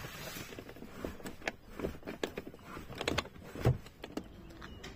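Irregular clicks, knocks and light rattles of gear being handled, with one louder knock about three and a half seconds in.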